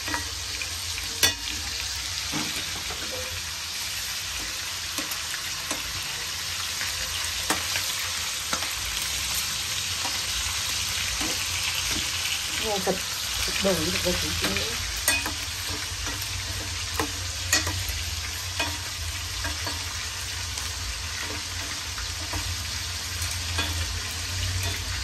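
Meat frying in hot oil with a steady sizzle, and scattered light clicks of metal tongs turning the pieces against the pot.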